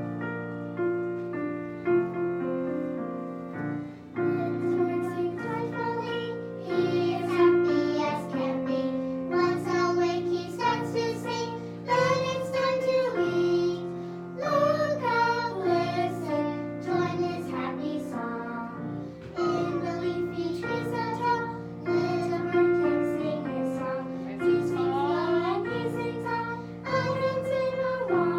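Children and a woman singing a children's song in 2/4 time to piano accompaniment.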